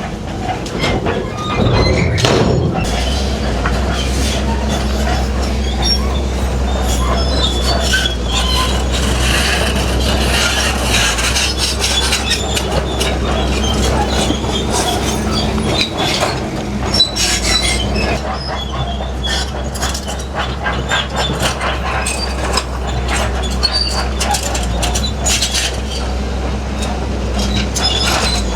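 Crawler bulldozer at work: its diesel engine runs steadily under load while the steel tracks clank and squeal over rock.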